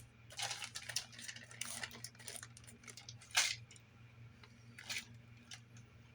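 Hands working a laptop: an irregular run of clicks, taps and light rattles, the loudest about three and a half seconds in, over a faint steady low hum.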